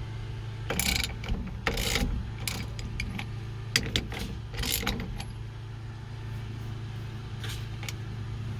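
A socket wrench working loose the 15/16 steering wheel nut: a string of metallic rasps and clicks through the first five seconds, over a steady low hum.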